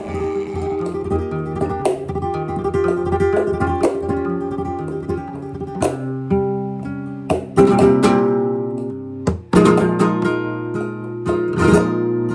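Flamenco guitar playing a two-beat flamenco rhythm: ringing chords broken by sharp strummed accents, which grow louder and more frequent in the second half.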